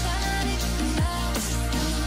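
Electronic background music with a steady heavy bass and a falling pitch sweep about a second in.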